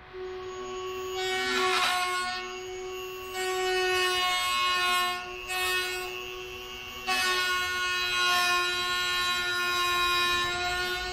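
Freight train horn blowing the grade-crossing signal: two long blasts, a short one, then a long one. A small power tool's steady whine runs underneath.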